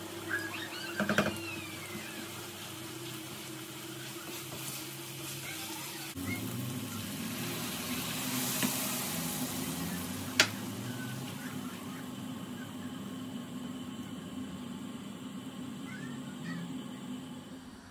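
Ground meat with onion, peppers and garlic sizzling in a frying pan over a steady hum, with a few short high sounds about a second in and a single sharp click about ten seconds in.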